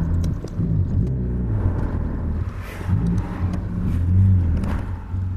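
Car driving on a road, heard from a roof-mounted camera: steady low rumble of road and wind noise, with a few brief whooshes about three seconds in and near the end.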